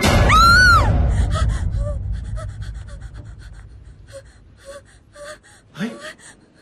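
A woman's short high scream that rises and falls, then quick ragged panting with small gasps, ending in a sharp rising gasp near the end. A low rumble fades out over the first few seconds.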